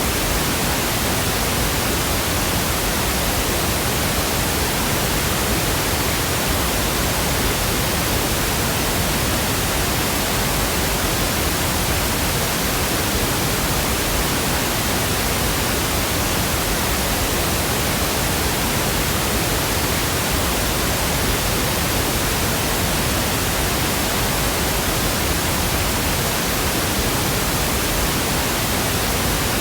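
Steady pink noise: an even, unchanging hiss spread across the whole range from deep to high pitches.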